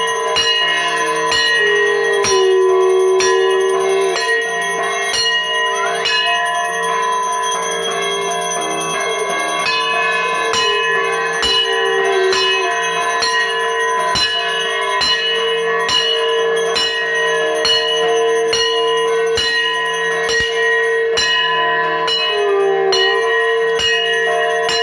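A puja bell rung steadily during the worship, with strokes coming a little more than once a second and the ringing tones overlapping into a continuous clangour.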